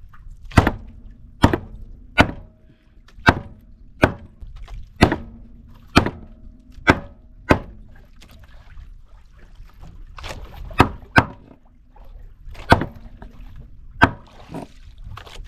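Knife chopping through fish: about fifteen sharp chops, roughly one a second, with a short pause midway.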